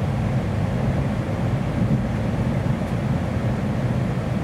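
Steady running noise inside the passenger cabin of a JR Kyushu N700-8000 series Shinkansen car: an even low rumble and hum of the train in motion, shortly before arrival.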